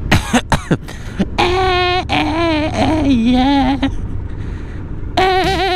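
A man sings a wordless tune, his pitch sliding and wavering, with a few quick swooping slides at the start. The tune drops away briefly about four seconds in, then resumes. Underneath, the steady noise of the Yamaha Bulldog 1100 motorcycle's engine and wind runs on.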